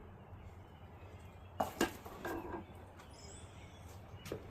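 Quiet outdoor background with two light clicks in quick succession about one and a half seconds in, as transmission parts are handled, and a faint high bird chirp a little later.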